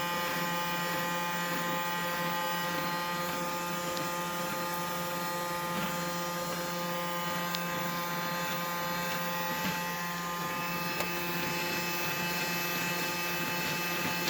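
GuGio robot vacuum cleaner running: a steady motor and fan whine with several constant tones, and a few faint clicks as it moves.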